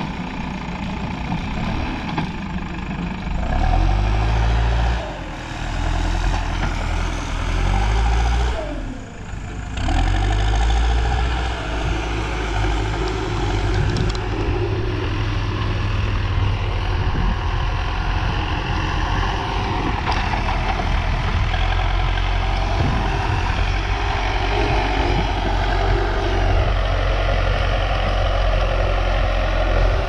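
Escorts backhoe loader's diesel engine revving as its front bucket pushes soil: the revs rise and fall several times in the first ten seconds, dip briefly about a third of the way in, then hold steady under load.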